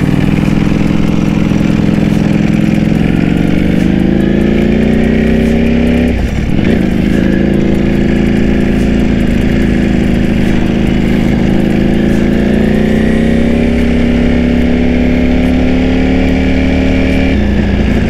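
Ducati Panigale V4S's V4 engine through an Akrapovic full-system exhaust, pulling hard with the revs climbing, a brief break at about six seconds as it shifts from first into second gear, then running steadily and climbing again before the note drops near the end.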